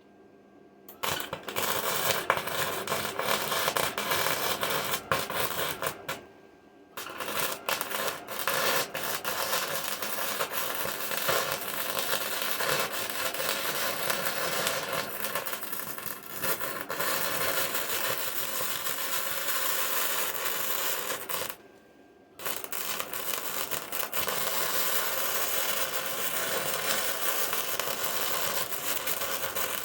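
Electric arc welding on the torn steel seam of a tractor loader bucket: three runs of crackling arc that start and stop abruptly, a short one about a second in, a long one of about fifteen seconds, and a third that carries on to the end.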